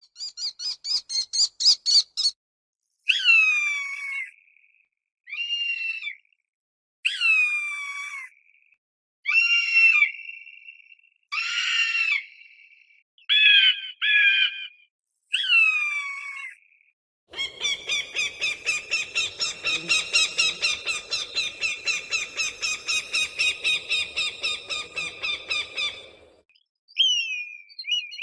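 Hawk calls. First comes a quick series of short notes, then a string of separate screams about a second long, each falling in pitch. Then a long run of rapid repeated notes, about four or five a second, and a few more short calls near the end.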